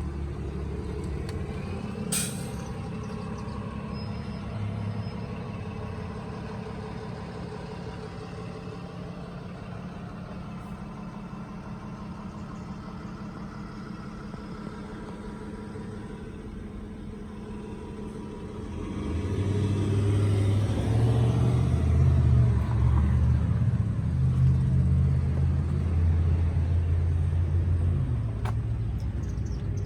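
Steady low vehicle rumble with a sharp click about two seconds in; the rumble grows clearly louder about two-thirds of the way through.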